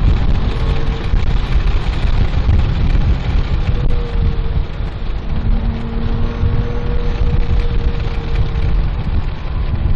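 Inside the cabin of a Porsche 997.1 GT3 at speed on track: a heavy, steady low rumble of road and wind noise, with the 3.6-litre flat-six engine note faint underneath, holding an even pitch through the middle.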